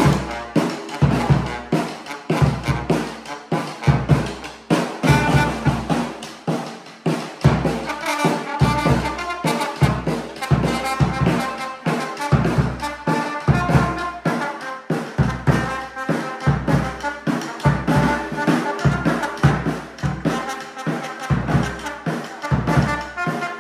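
Trombone playing a melody over a steady bass-drum beat, with drums struck in a regular rhythm of about two to three beats a second.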